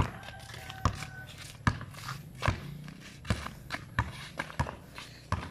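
A basketball dribbled on a concrete court, one bounce about every 0.8 seconds, with the players' footsteps scuffing between bounces.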